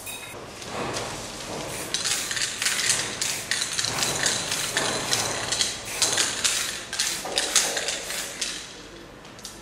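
Aerosol spray can hissing in a run of short, repeated bursts, sprayed onto leather boots.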